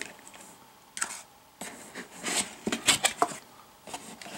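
Cardboard packaging being handled: a computer mouse lifted from its cardboard box insert and the insert pulled out of the box, giving scattered light taps, scrapes and rustles with short pauses between.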